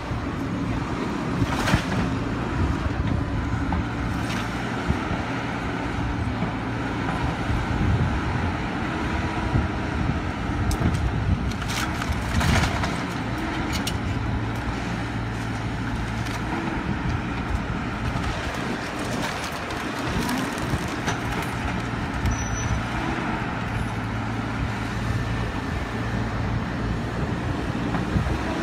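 Caterpillar tracked excavator's diesel engine running steadily as its bucket works through a pile of wooden demolition debris, with a few sharp cracks and crunches of breaking wood, the heaviest about twelve seconds in.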